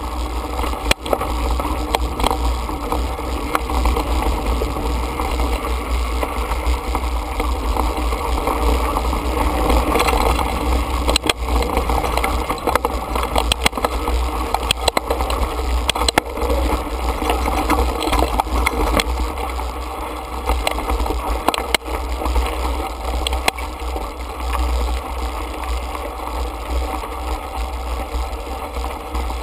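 Mountain bike ridden over a dry, stony dirt singletrack, heard from a handlebar-mounted camera: a steady wind rumble on the microphone over tyre noise, with frequent rattles and knocks as the bike goes over bumps.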